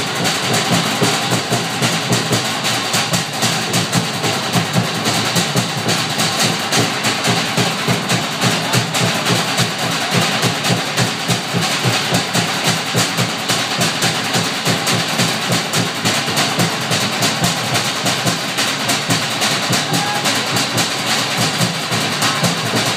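Live Polynesian drumming at a fast, driving pace: rapid beats on wooden drums over a deeper large drum, accompanying a fire knife dance.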